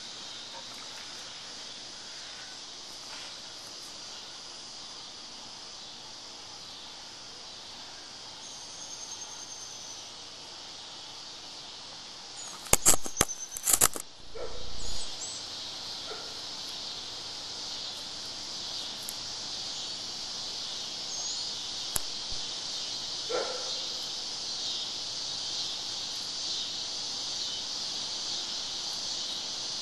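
Cicadas droning steadily in a continuous high-pitched chorus that swells somewhat in the second half. A quick cluster of loud knocks cuts through about halfway in.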